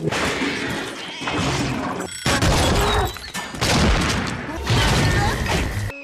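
Loud cartoon crash and clatter sound effects, one after another, with sudden changes about two seconds in and again near the end.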